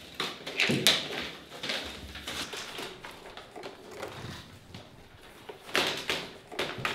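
Thin chestnut-wood basket splints clacking and scraping against each other as they are laid and woven into a basket base: irregular light knocks and rustles, with a busier cluster near the end.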